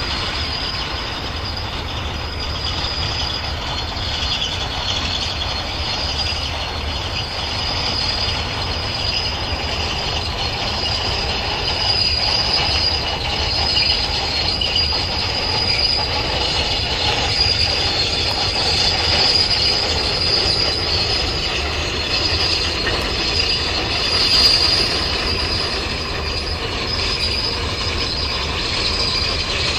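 Freight train wagons rolling past with a steady high-pitched wheel squeal over a low rumble.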